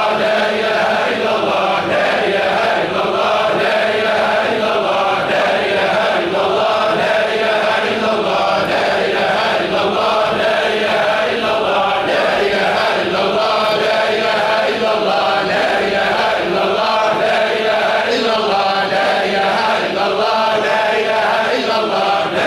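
A congregation of men chanting Sufi dhikr in unison. A short phrase of remembrance of God is repeated over and over in a steady rhythm, about once every two seconds.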